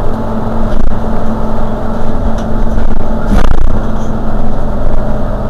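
Mercedes-Benz Citaro G C2 articulated bus's engine idling steadily at a stop, with a constant hum. A short sharp sound breaks in about three and a half seconds in.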